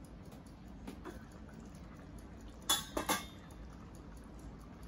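Stainless steel pot lid lifted off a stockpot and set down on another pan: a few sharp metal clinks in quick succession about three seconds in.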